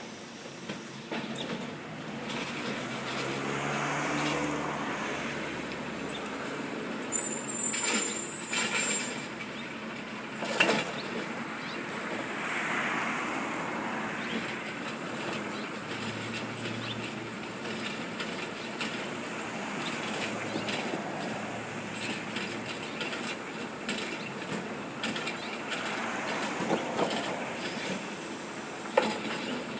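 Recycling garbage truck working a street collection, its engine running steadily, with sharp knocks about ten seconds in and again near the end.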